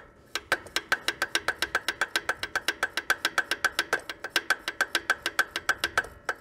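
Hand priming pump on a Cat D330C diesel's fuel system being worked quickly: a fast, even run of sharp metallic clicks, about six a second, starting half a second in and stopping about six seconds in. The bleed screw is open, so this is priming the fuel system and pushing air out after years of sitting.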